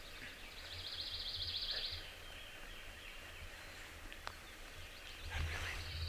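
Early-morning woodland ambience: a small songbird gives a high, fast, even trill for about two seconds and starts another near the end, over a faint low rumble.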